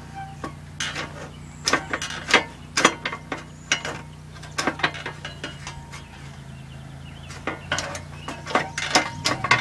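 Briggs & Stratton engine of an old self-propelled lawn mower running steadily, with many irregular metallic clicks and clanks as the seized self-propel drive cable and its lever are worked; the drive is not engaging.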